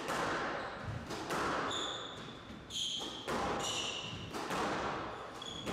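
Squash rally: sharp cracks of the ball off rackets and court walls about once a second, with rubber-soled shoes squeaking on the wooden court floor in short high squeals between shots.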